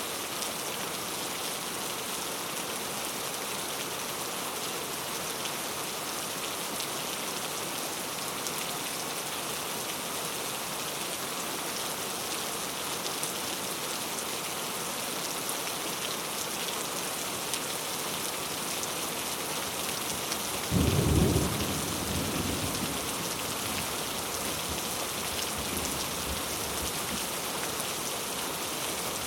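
Steady rain falling, a dense even hiss of drops. About two-thirds of the way through, a single sudden thunderclap breaks out and rumbles away over a few seconds.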